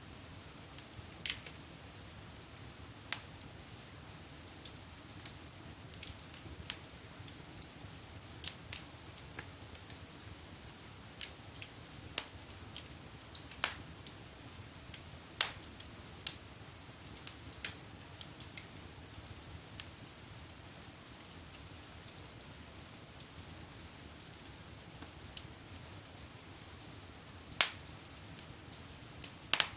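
Wood fire burning in a fireplace, crackling with irregular sharp pops and snaps over a low steady rush of flame.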